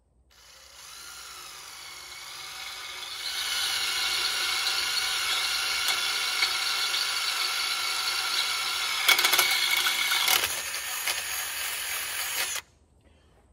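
Cordless drill boring holes into the metal grill guard, its motor whining steadily and getting louder about three seconds in. A cluster of clicks comes from the bit around nine to ten seconds, and the drill stops suddenly near the end.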